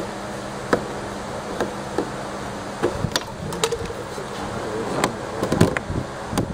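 Scattered sharp plastic clicks and knocks from the white corrugated plastic waste hose and pop-up waste fittings being handled and pushed together on a shower tray, more frequent in the second half, over a steady low hum.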